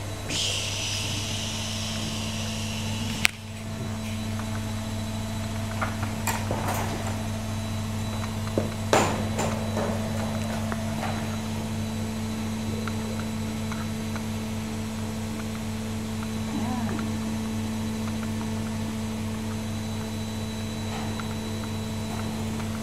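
A steady low hum runs throughout. A sharp knock comes about three seconds in, and a few smaller knocks and rustles follow between about six and nine seconds in.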